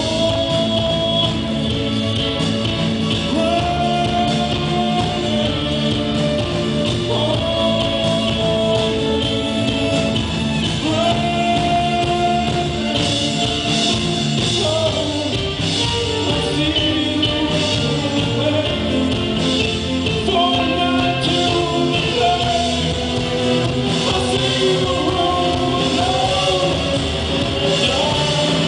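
Live rock band playing a song: a male lead vocal sung over strummed acoustic guitar, electric guitar and drums, heard through the reverberant room of a club hall.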